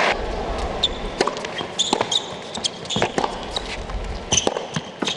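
Tennis ball being struck and bouncing on an indoor court, a string of sharp knocks about a second apart, with short high squeaks of shoes on the court surface over a low crowd murmur.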